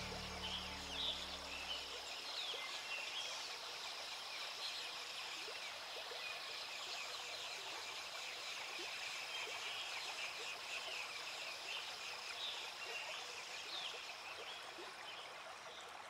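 Background music fades out about two seconds in, leaving woodland ambience: a steady rushing hiss with many faint, quick chirps, growing slightly quieter near the end.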